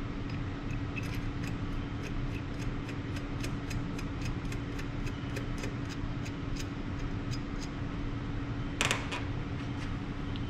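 Hand assembly of a small engine's valve train: a short metallic clack of rocker arm parts about nine seconds in, over faint, rapid, evenly spaced ticking and a steady shop hum.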